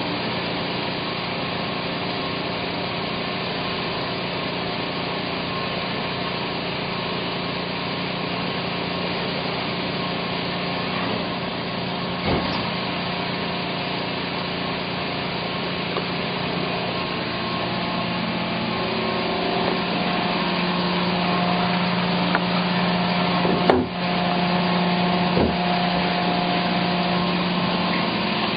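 Yamaha F225 four-stroke outboard motor running steadily at a constant speed, growing slightly louder about two-thirds of the way through. Three short knocks sound over it.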